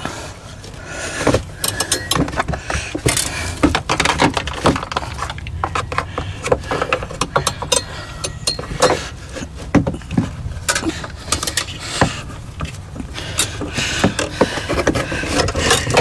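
Wire coat hanger rattling and scraping against a flexing plastic wheel-well liner as the liner is pulled back and wired in place, close to the microphone: many irregular clicks, rubs and rattles.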